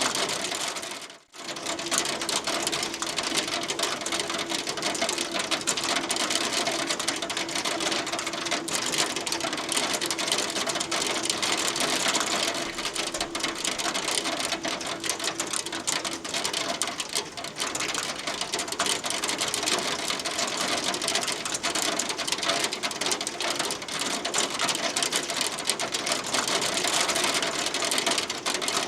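Hail falling steadily: a dense, rapid pattering of hailstones striking a surface, with a brief dropout about a second in.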